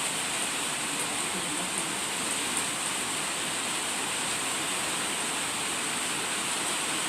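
Steady, even hiss with a high-pitched band, and a few faint ticks in the first three seconds.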